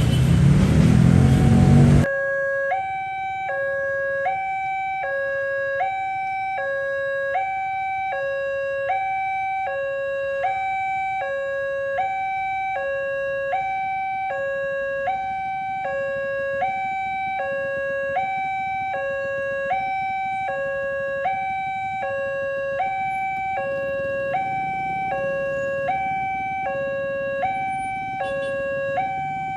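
A loud rumbling noise cuts off abruptly about two seconds in. Then a railway level-crossing warning siren sounds: an electronic two-tone alarm switching steadily between a low and a high note, about one high-low pair every second and a half.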